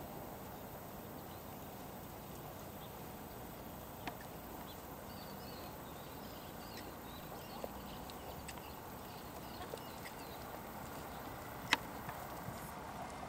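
Faint hoofbeats of a Belgian Warmblood horse on a sand arena under a steady outdoor hiss, with a few isolated sharp clicks, the loudest near the end.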